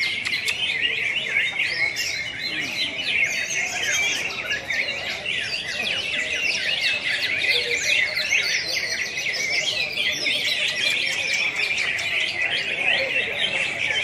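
Many caged green leafbirds (cucak hijau) singing at once, a dense, unbroken chorus of rapid chirps and whistles.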